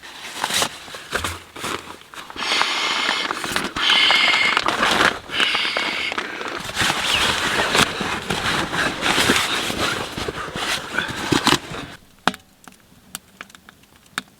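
Rustling and crinkling of fabric and gear being handled, dense and fairly loud with many small clicks. About twelve seconds in it drops away to sparse ticks and crackles from the wood stove fire.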